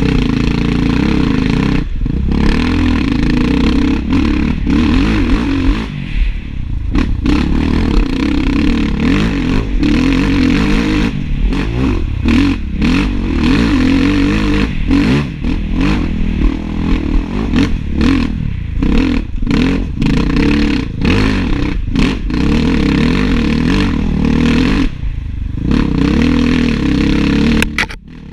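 Enduro dirt bike engine revving hard, rising and falling in pitch with frequent short throttle cuts, heard close-up from a bike-mounted onboard camera.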